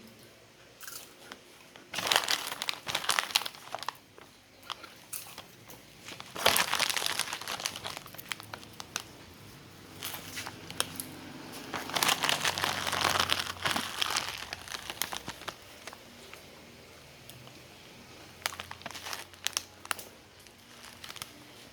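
Plastic snack wrapper crinkling in three spells of handling, with lighter rustles and clicks between them and near the end.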